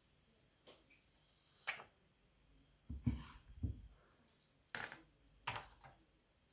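Faint handling sounds as the protective plastic film is peeled off a new smartphone's screen: a few short plastic crackles, with two low bumps of the phone being handled in the middle.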